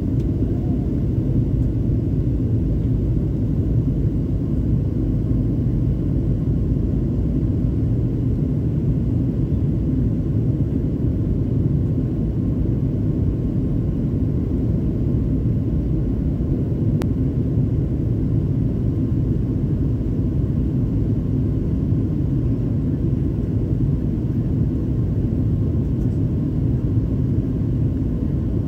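Steady low rumble inside the cabin of a Boeing 737-900 on approach with its flaps extended: engine and airflow noise, unchanging throughout.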